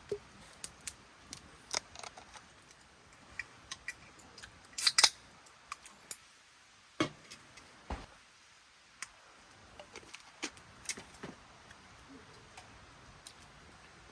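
Scattered light clicks and small knocks of objects being handled, at irregular intervals, with a brief cluster of sharper clicks about five seconds in.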